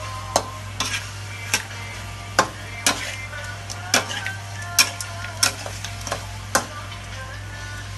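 Spatula scraping and knocking against a metal wok as chicken pieces and sliced ginger are stir-fried, with sharp strikes about once a second over a low sizzle.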